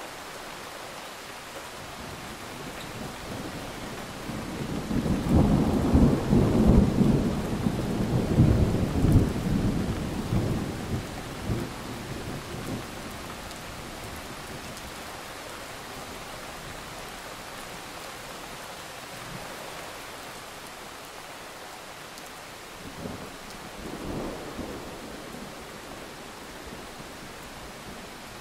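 Steady rain with a long roll of thunder that swells about five seconds in and dies away by about thirteen seconds, then a shorter, fainter rumble of thunder a few seconds before the end.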